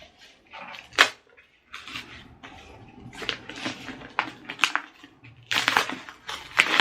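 An Amazon package being opened by hand: irregular crinkling and tearing of packaging, with a sharp snap about a second in and louder bursts of rustling near the end.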